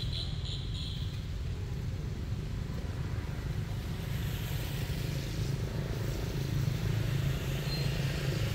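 A steady low rumble that grows slightly louder in the second half, with a short run of rapid high chirps in the first second.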